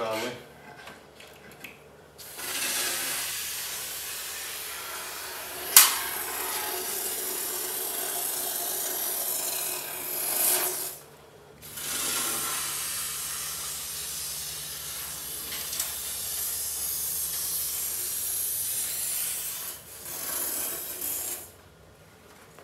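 Eastwood aerosol can spraying coating through an extension hose into the inside of a heater channel: two long hisses of about nine seconds each with a short break between, and a sharp click about six seconds in.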